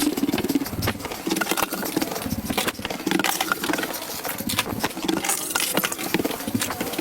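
Footsteps in a steady walking rhythm, with scattered clicks and knocks throughout.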